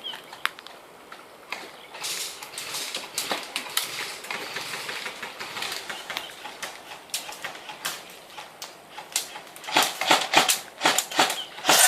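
Dry leaves and undergrowth rustling and crackling, with many sharp clicks and snaps, quiet for the first two seconds and growing louder and denser near the end.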